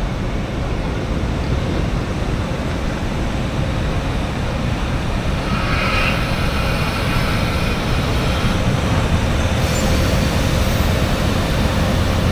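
Train rolling past with a steady rumble, with a faint high squeal from the wheels about halfway through.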